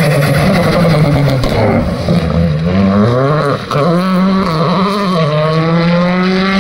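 Citroën C3 Rally2 rally car's engine at high revs, passing close and driving away. The revs dip and pick up a few times in the first half as the car brakes and corners, then climb steadily in one long pull from about five seconds in as it accelerates away.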